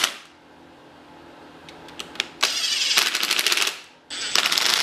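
Cordless impact driver running in two short bursts, its hammer rattling rapidly as it drives the screws that close the lawn mower transaxle's case halves. The first burst starts about two and a half seconds in and lasts just over a second; the second comes near the end, after a couple of light clicks of metal.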